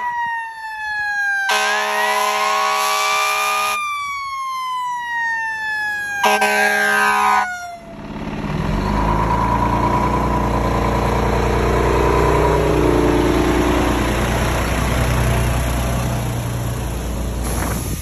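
Fire truck siren rising once and then falling slowly in pitch, broken by two long horn blasts. After about eight seconds the siren fades and the truck's diesel engine rumbles as it passes close by.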